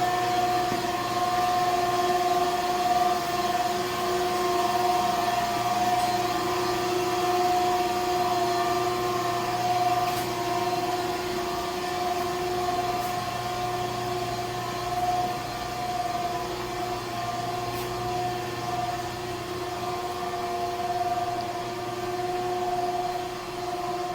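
Steady machine drone: two held humming tones over an even hiss, unchanging.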